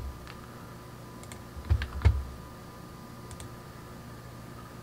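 Computer keyboard and mouse: about five scattered sharp clicks and taps, two of them with a dull low thump about two seconds in, over a faint steady hum.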